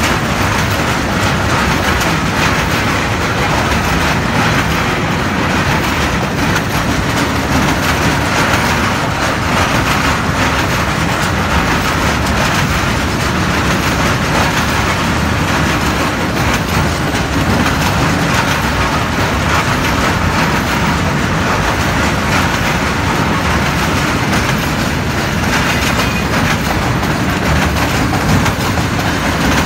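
Open freight wagons of a long train rolling past at close range: a steady, loud rumble and clatter of steel wheels on the rails, going on without a break.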